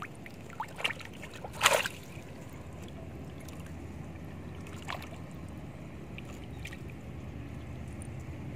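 Hooked snakehead murrel splashing in shallow water: a few short splashes, the loudest about two seconds in and a smaller one about five seconds in, over a steady low rumble.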